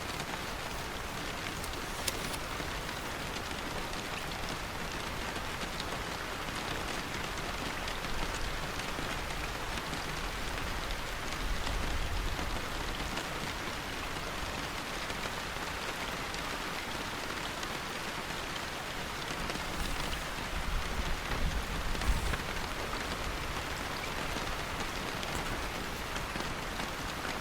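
Steady rainfall, an even hiss of drops hitting a surface, with a few brief sharp ticks and a low swell of rumble about halfway through and again near the end.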